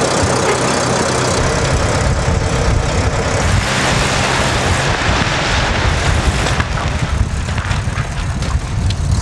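Heavy vehicle engine running steadily with a low drone and a noisy layer over it, as it pulls on a cable rigged to drag a building's roof down.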